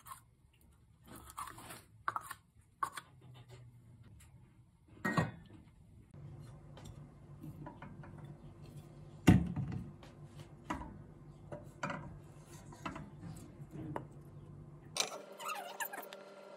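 A wooden spoon knocking and scraping against a stainless steel pot, a scatter of sharp knocks among quieter clatter, the loudest a little after nine seconds in. A faint steady low hum runs underneath from about six seconds on.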